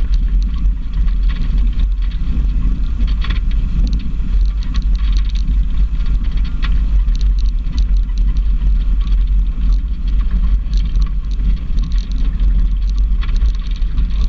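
Off-road vehicle driving slowly along a loose gravel track: a steady low engine and drivetrain rumble, with scattered clicks and crackles of stones under the tyres.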